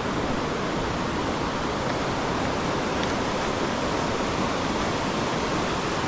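Shallow river rushing over rocks and small rapids: a steady rush of water.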